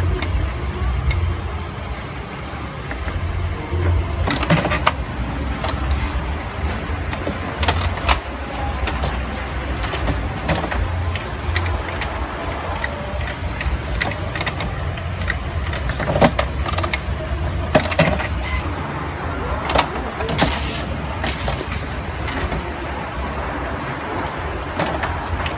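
HP Smart Tank 510 inkjet printer running a test photocopy after a cleared paper jam: a steady low motor hum with scattered clicks and clacks from the paper feed and print mechanism.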